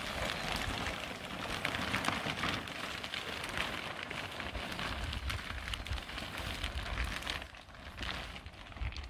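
Large sheet of clear polyethylene greenhouse film crackling and rustling as it is pulled and handled, with a low rumble underneath. The crackling eases off briefly about seven and a half seconds in.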